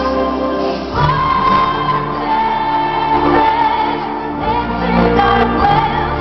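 Live band music heard from among the audience: a sung melody entering about a second in, held over sustained bass and keyboard notes, the bass note changing about a second in and again midway.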